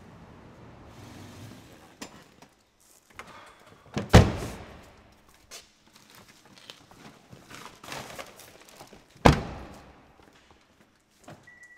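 A car door slams shut twice, about five seconds apart, each slam ringing out in the echo of a concrete parking garage, with quieter knocks and rustling between them. A low rumble fades out over the first two seconds, and a brief high steady beep starts near the end.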